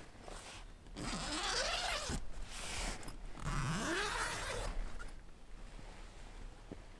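A canvas tent door's zipper being pulled open in two long strokes, each about a second, with the fabric rustling around them.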